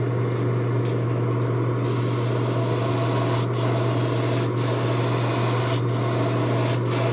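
Gravity-feed airbrush hissing as it sprays paint onto a lure body, coming in about two seconds in and cut off briefly a few times as the trigger is eased off, over a steady low hum.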